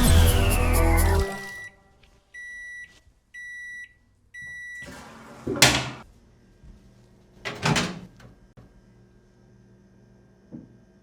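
Music cuts off about a second in. A microwave oven then beeps three times, each beep a steady half-second tone about a second apart, the usual signal that the cooking cycle has finished. Two short bursts of noise and a faint knock follow.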